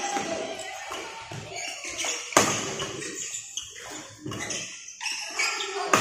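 Badminton rally: rackets striking the shuttlecock in a series of sharp cracks, the loudest about two and a half seconds in, over background voices.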